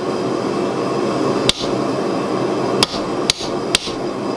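Hammer blows on a punch driving into glowing steel bar stock on an anvil to punch a hole. There are four sharp strikes, one about a second and a half in and three in quick succession near the end, each ringing briefly. Under them runs a steady rushing noise.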